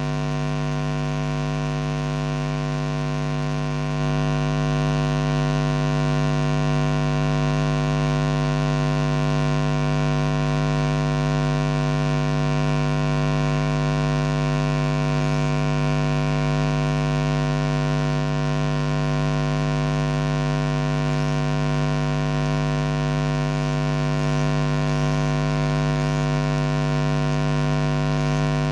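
Loud, steady electrical buzz: mains hum with many overtones on the microphone's audio line, unchanging throughout, growing slightly louder about four seconds in.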